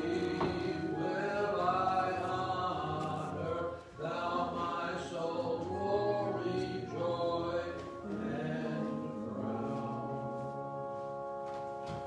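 Voices singing a slow hymn in phrases of a few seconds, with a brief break about four seconds in and a long held note over the last four seconds.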